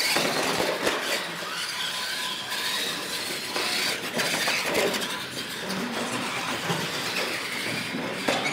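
Radio-controlled monster trucks running flat out across a concrete floor: a steady whir of their motors and gear drivetrains, with the hum of the tyres.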